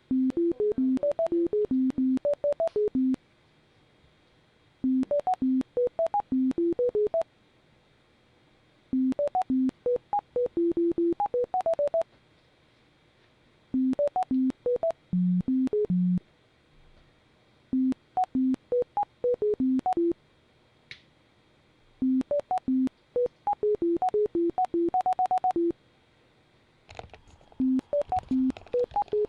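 Bioresonance NLS scanning software giving out rapid, short electronic beeps at jumping pitches while it runs a scan. The beeps come in runs of two to three seconds broken by short pauses.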